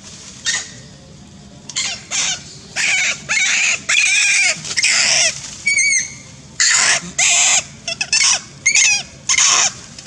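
Macaques giving a rapid string of short, high-pitched screams and squeals, each call arching up and down in pitch, in clusters of two or three.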